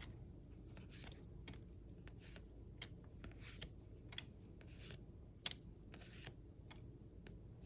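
Magic: The Gathering trading cards being handled and flipped through: a faint, irregular run of short swishes and ticks as cards slide over one another.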